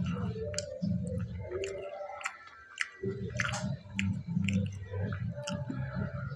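A person chewing a mouthful of fried pakora close to the microphone, in a steady rhythm of chews with sharp mouth clicks and a short pause about two seconds in.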